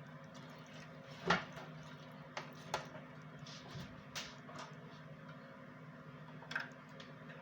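A few short clicks and knocks of kitchen utensils and cookware, the loudest about a second in, over a steady low hum.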